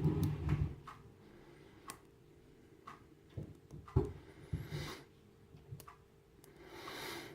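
Dimple padlock being picked: scattered light metal clicks and brief scrapes of a dimple pick working in the keyway against a bobby pin tension wrench, with a duller knock about four seconds in. The pick is probing for a binding pin and finding none.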